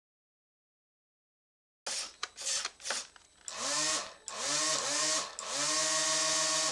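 Small electric motor spinning the model powerboat's caged fan propeller, switched on about two seconds in with a few short blips, then spun up several times with a rising whine, the last run held steady.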